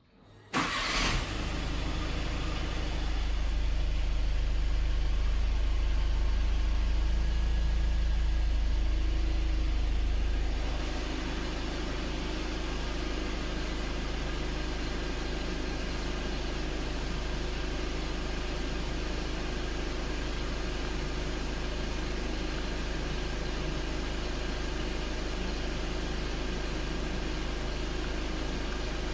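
A car engine is cranked and catches about a second in, then runs steadily. About ten seconds in, the running note drops to a slightly quieter, steady idle, as an engine does when it settles after starting.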